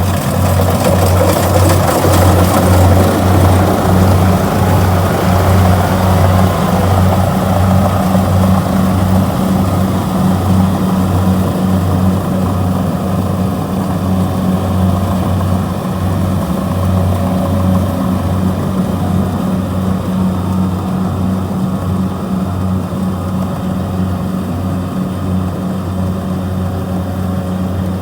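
Diesel engine of a Kubota DC-70G rice combine harvester running steadily with a low, even hum, loudest in the first few seconds and slowly growing fainter.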